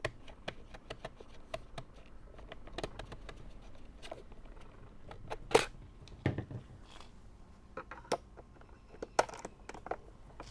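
Irregular light clicks and knocks of a screwdriver working screws into the plastic housing of an electric pressure washer, with a louder knock about five and a half seconds in.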